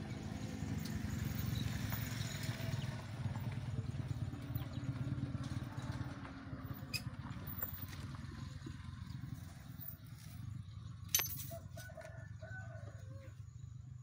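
A steady low motor rumble, with one sharp click a little past the middle and a few short high calls soon after.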